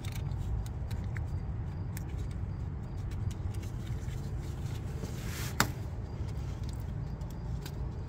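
A steady low rumble throughout, with a single sharp click a little past halfway through.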